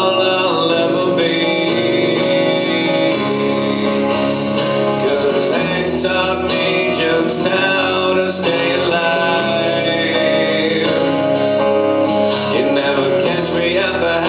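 Country song with guitar playing an instrumental passage between sung verses.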